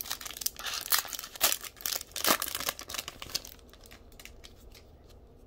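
Foil wrapper of a 2020 Donruss football card pack crinkling and tearing as the pack is ripped open and the cards pulled out. The crackling dies down after about three and a half seconds.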